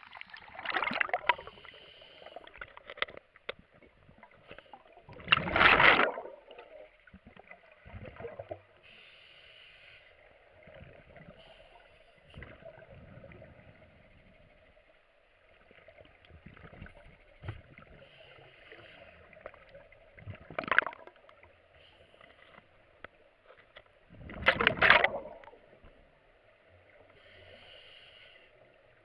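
Scuba diver breathing underwater through a full-face mask regulator: several loud, short gushes of exhaled bubbles over a faint steady hiss.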